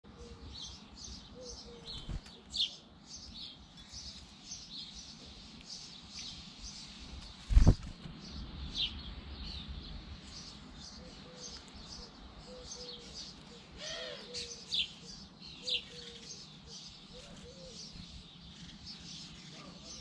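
Many small birds chirping in quick, overlapping short calls at a garden feeder. A single sharp knock about seven and a half seconds in is the loudest sound, with lower short calls here and there.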